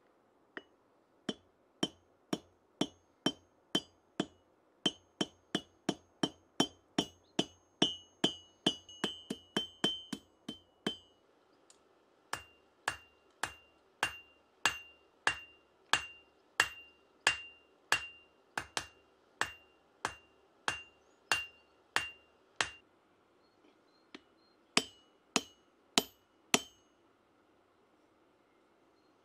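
Hand hammer striking a red-hot steel bar on an anvil, forging the flail's chain mounting piece. Sharp blows about two to three a second, each followed by a short metallic ring, in three runs with brief pauses about a third of the way in and again near the end.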